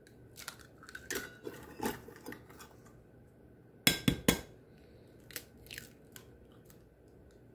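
An egg knocked three times in quick succession against a glass dish to crack it, sharp taps about four seconds in. Lighter clicks and crackles of eggshell come before and after.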